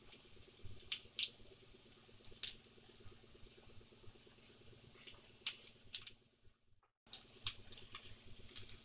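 Tempering of green chillies, mustard seeds and curry leaves frying in a little hot oil in a small pan, with a faint sizzle and scattered crackles and pops.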